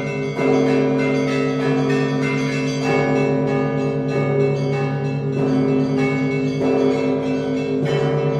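Russian Orthodox church bells of the Danilov Monastery rung together in a festal peal. A deep bell is struck about every second and a quarter, under quicker patterns on the smaller bells, and all of them ring on and overlap.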